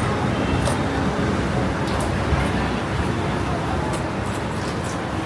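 Busy city street ambience: a steady low rumble of traffic with indistinct voices of people around, and a few scattered short clicks and clatters.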